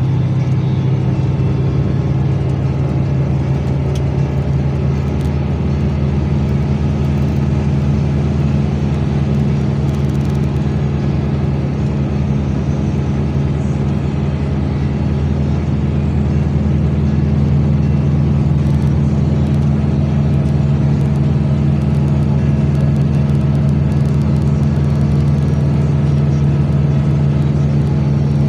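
Steady engine drone and road noise of a moving road vehicle, a low hum that holds an even pitch throughout and grows slightly louder about two-thirds of the way through.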